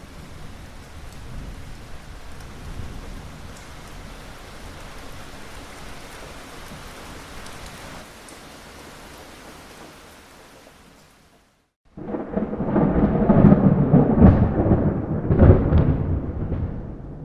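Steady rain falls and fades out about two-thirds of the way through. After a moment of silence, a loud, irregular rumble of thunder with rain comes in, swelling in several peaks.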